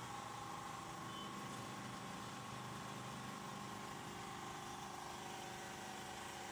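Kyocera photocopier running with a steady machine hum and a constant whine, unchanging throughout.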